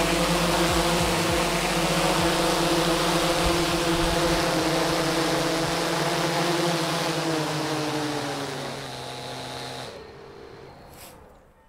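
GoPro Karma quadcopter's four electric motors and propellers running with a steady hum as it sets down on the grass, then spinning down with a falling pitch after landing and stopping abruptly about ten seconds in.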